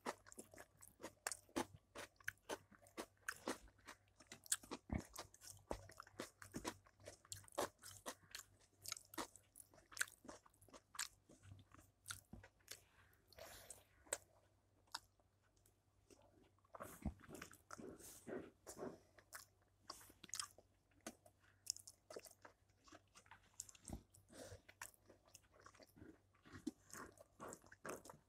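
A person chewing and smacking while eating rice and curry by hand: a steady run of short wet clicks and smacks, easing off briefly about halfway through.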